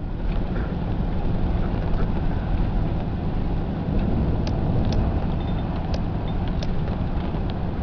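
Steady road and engine noise heard inside the cabin of a moving vehicle, with a few faint clicks near the middle.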